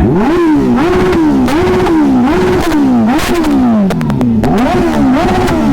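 Motorcycle engine being revved over and over, its pitch climbing quickly, holding for a moment, then dropping away, about one and a half revs a second. A few sharp clicks sound in the middle.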